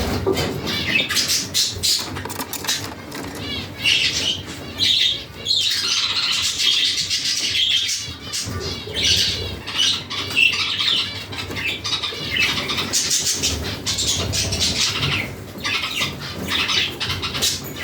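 Budgerigars chirping and chattering, a steady run of short warbled calls and squawks.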